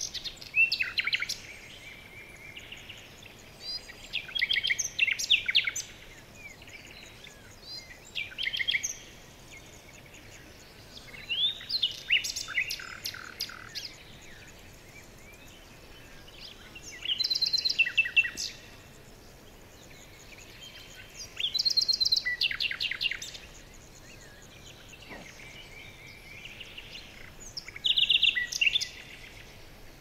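Songbirds singing: short high phrases of quick trills and chirps, one every few seconds, over faint steady background noise.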